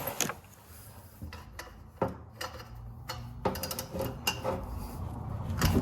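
Scattered metallic clicks and knocks of a socket and breaker bar working on a car's oil drain plug, with a sharp snap near the end as the plug breaks loose.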